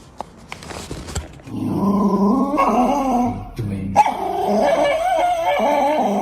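A dog vocalising in long, wavering, pitched sounds that start about a second and a half in, with a short break about four seconds in.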